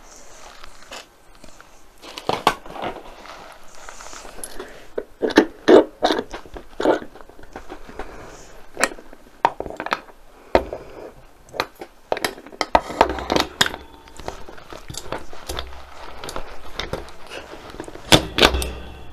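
Metal and plastic parts of a spring-loaded desk-mount arm clicking, knocking and scraping as it is worked into its table clamp by hand: irregular sharp clicks and rattles, with louder knocks about five seconds in and near the end.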